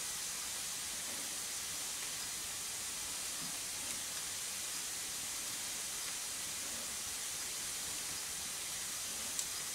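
Steady, even hiss, with a few faint ticks and one slightly sharper tick near the end.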